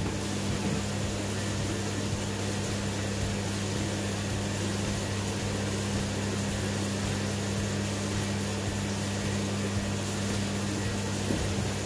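A steady low hum with an even hiss, the drone of running room equipment. One faint knock comes near the end.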